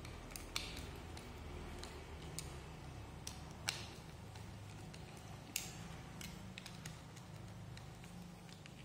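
A handful of faint, short clicks and light knocks as a small plastic 12-volt solenoid valve and a screwdriver are handled, over a low steady hum.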